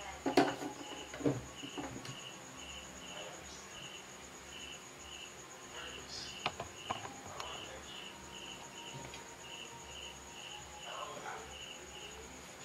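A cricket chirping in an even, steady run of about two to three high chirps a second, with a steady high insect whine above it. A few light knocks and clicks break in, the loudest near the start.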